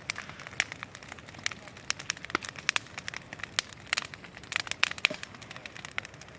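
Large bonfire crackling, with irregular sharp pops several times a second over a faint hiss.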